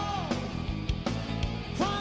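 Background music with a steady beat and a gliding melodic line over it.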